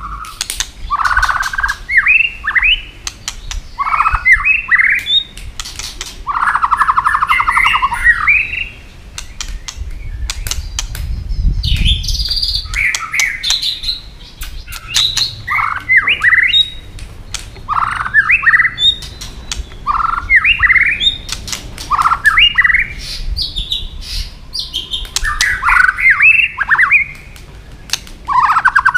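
Male white-rumped shama giving an agitated fight song: short, fast whistled and harsh phrases repeated every second or so, a few buzzy rattling notes, and many sharp 'tak' clicking calls between them.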